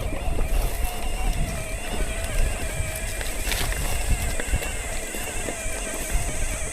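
Bicycle rolling over a rough gravel forest road, with irregular knocks and rattles and wind rumbling on the microphone. A steady wavering tone runs underneath.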